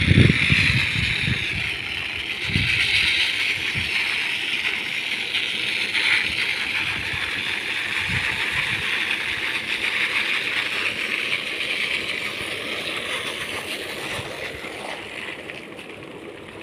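Solar-powered winnowing machine's fan blowing while paddy grain is poured from a bamboo basket through its airstream: a steady rushing hiss of air and falling grain that fades near the end.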